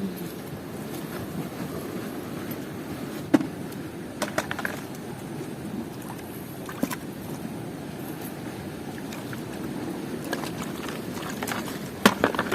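Strong wind buffeting the microphone over water, a steady low rushing, with a few sharp knocks scattered through and a cluster of them near the end.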